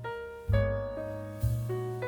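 Background piano music: chords with a low bass note struck about once a second, each fading before the next.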